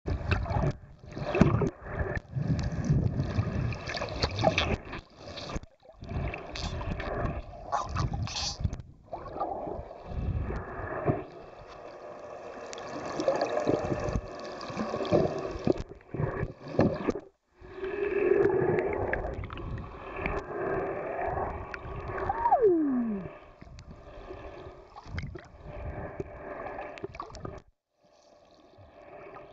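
Underwater water noise as a swimmer films dolphins: rushing and gurgling bubbles, uneven in loudness with several abrupt breaks. About 22 seconds in, a single tone falls steeply in pitch.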